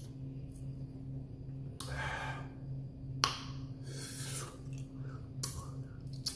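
A man breathing hard through an open mouth and bared teeth to cool a tongue burning from very spicy noodles, a few sharp breaths with a mouth click about three seconds in, over a steady low hum.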